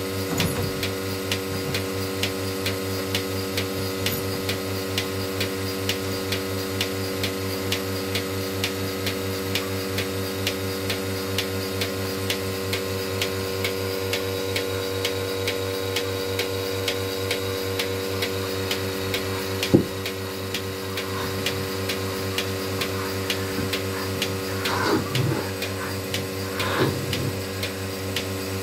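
Portable bucket milking machine running during milking: the vacuum pump hums steadily while the pulsator clicks about twice a second. A single sharp knock comes about twenty seconds in, and a few short squeaks near the end.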